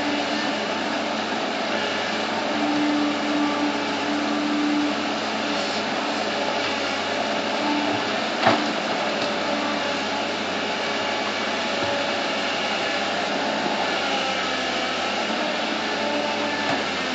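Bulldozer's diesel engine running steadily, with a single sharp knock about eight and a half seconds in.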